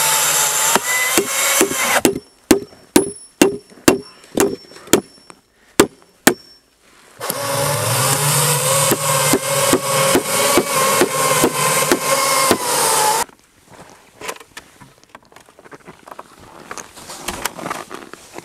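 A power drill runs for about two seconds, then about ten sharp blows on wood land roughly two a second, with a faint high ring. The drill runs again for about six seconds, and then there is quieter rustling with small knocks.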